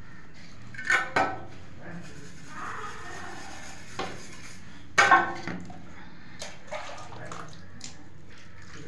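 A mason's trowel scraping and clinking in wet cement mortar laid for floor tiles, with sharp clinks about a second in and again about five seconds in, and smaller taps between, over the wet sound of cement slurry.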